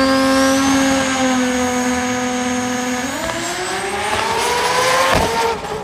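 Drag race car engines held at a steady high pitch on the start line, with a high whistle above them. About three seconds in they launch, and the pitch climbs steadily as they accelerate away. Near the end there is a sharp crack, and the sound drops away quickly.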